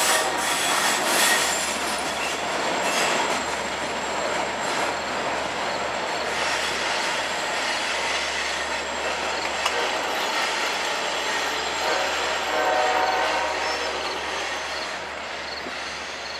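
Long Island Rail Road push-pull train of bilevel coaches and DM30AC dual-mode locomotives passing close by: a steady rush of wheels on rail, with clacking over the joints. A short horn note sounds about thirteen seconds in, and the sound falls off slightly near the end.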